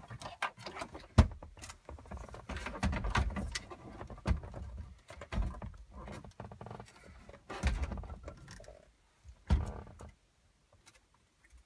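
Cables and plugs rustling and knocking as they are pushed into the dash cavity, then an aftermarket head unit bumping and scraping against the dash opening as it is pressed into place. Irregular clicks and knocks, with one sharp knock about a second in, and quieter near the end.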